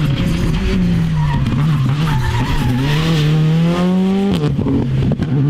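Škoda Fabia R5 rally car's turbocharged four-cylinder engine pulling hard. The engine note wavers for the first couple of seconds, then climbs steadily until it drops sharply at an upshift about four seconds in, with a few sharp cracks at the shift, and begins to climb again.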